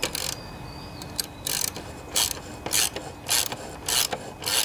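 Socket ratchet wrench tightening a bolt. Each return stroke gives a short burst of ratchet clicking: one right at the start, then after a pause a steady run of them, nearly two a second.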